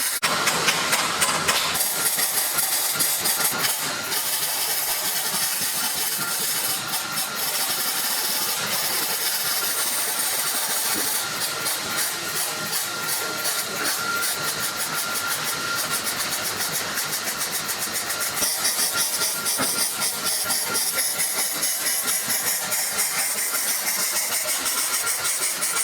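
Continuous hissing, crackling noise of a tool working on the car's steel body panel, with a faint steady whine through the middle.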